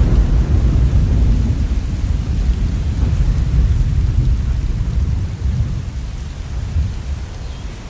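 Rolling thunder, a long low rumble that slowly fades over several seconds, over steady rain.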